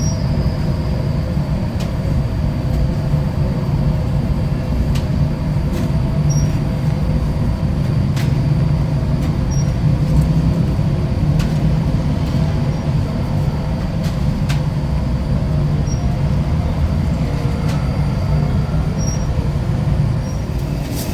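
A steady, low mechanical rumble, like a motor vehicle running, with a few faint clicks over it.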